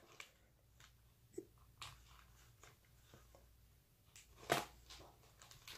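Near silence in a small room, broken by a few faint clicks and one short burst of noise about four and a half seconds in.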